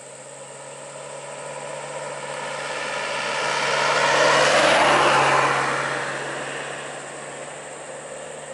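Isuzu light truck driving past, its engine and tyre noise swelling to a peak about halfway through and then fading away.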